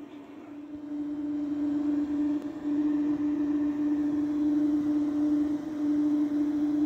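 RGB laser projector running: a steady mechanical hum with one low tone, growing louder about a second in and then holding steady.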